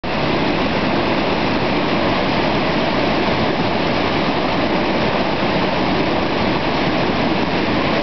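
Steady rushing of river water, an even, unbroken noise.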